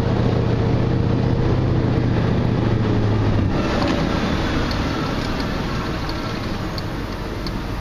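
Cabin noise from a vehicle driving slowly: a steady low engine hum that drops away about three and a half seconds in, leaving softer road noise with a few faint ticks.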